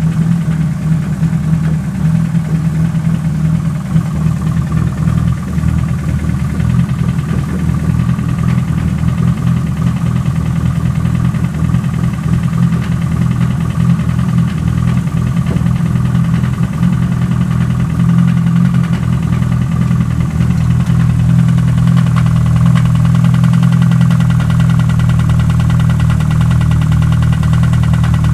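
Nissan SR20 inline-four engine running with an abnormal noise that grows louder in proportion as the revs rise; the owner does not know its cause. The engine gets somewhat louder about two-thirds of the way through.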